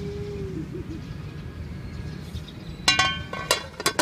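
Aluminium cooking pot and its metal lid clinking together about four times in quick succession near the end, each strike ringing briefly. A steady low background murmur runs underneath.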